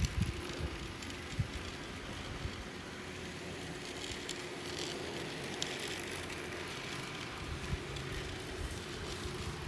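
Toy electric train running on plastic track: a steady hum from its small motor and running gear, with a few faint clicks and a few low thumps.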